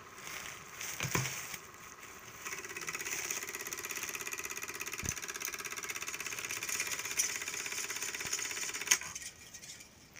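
Porst Super 8 film projector running with a fast, even mechanical clatter from about two and a half seconds in, stopping with a click near nine seconds. Handling knocks about a second in.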